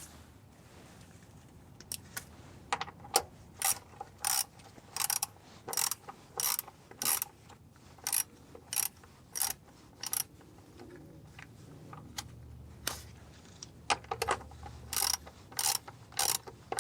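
Hand ratchet wrench clicking in a run of short back-and-forth strokes, about one and a half a second, as a bolt is tightened. The strokes pause for a few seconds near the end of the run, then start again.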